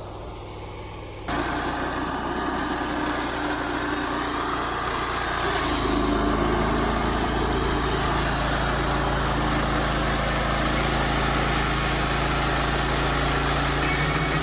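Wood-Mizer LT35 sawmill's engine running steadily, coming in abruptly loud about a second in, with a steady high hiss over it.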